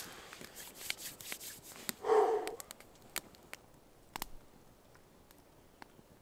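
Small wood fire crackling and popping in a perforated camp stove, with one brief louder sound about two seconds in.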